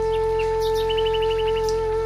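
Soft background music holding one long, steady note. About a second in, a bird chirps a quick run of short notes.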